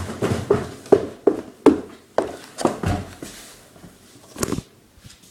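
A quick run of light knocks and clatters from things being handled and set down, about three a second for the first three seconds, then one more knock about four and a half seconds in.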